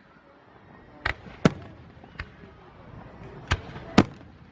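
Aerial fireworks bursting: five sharp bangs in about three seconds. The loudest comes near the end.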